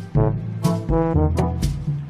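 Background music: a brass melody, trombone-like, over a drum beat.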